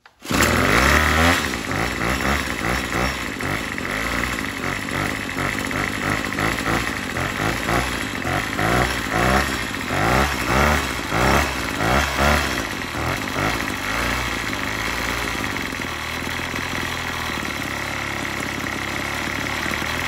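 Troy-Bilt gas string trimmer's small engine running, revved up and down in a series of quick throttle blips through the middle, then settling to a steadier idle near the end. The idle is a little wonky and needs turning up.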